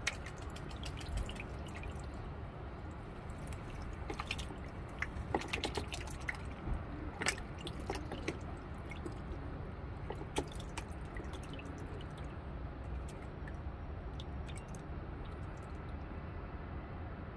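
White duck dabbling its bill in shallow water in a plastic tub while feeding on live loaches: irregular small splashes, drips and bill clicks, busiest in the middle and thinning out near the end, over a steady low rumble.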